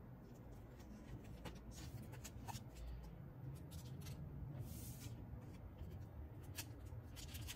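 Faint handling of Pokémon trading cards: a card slid into a clear plastic sleeve and cards pushed and picked up on a wooden table, with scattered light clicks and rustles and one brief hissing rustle about five seconds in.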